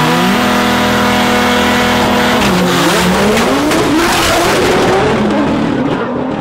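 Nissan GT-R and Audi TT RS race cars held at high revs on the line, then launching: the engine note dips about two and a half seconds in and climbs again as the cars accelerate hard past close by, loudest about four seconds in and falling away near the end.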